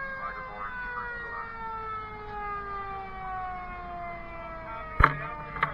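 Fire engine siren heard from inside the cab: a long wail falling slowly in pitch after a quick rise. About five seconds in come a sharp loud knock and a smaller one just after it.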